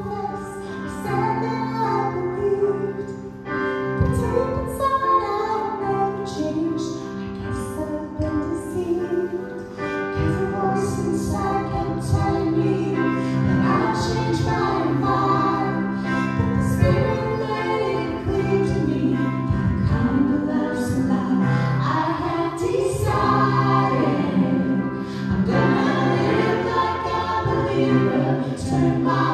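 A group of voices singing a Christian worship song over steady sustained accompaniment.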